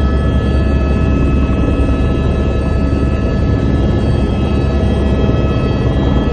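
Helicopter in flight: a steady, loud drone of rotor and engine with an unchanging high turbine whine over it.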